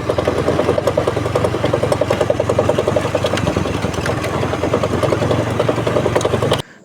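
A vehicle running with a fast, even rattling knock, the loose 'koplak' sound of a worn bearing that the owner says needs replacing. It cuts off suddenly near the end.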